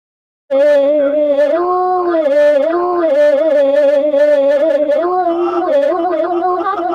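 A young person's voice holding one long, loud, wavering sung note, heard from a played-back recording. It starts about half a second in, after a brief silence, and the pitch wobbles and dips slightly without breaking.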